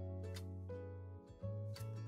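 Instrumental background music: held notes that change pitch every half second or so.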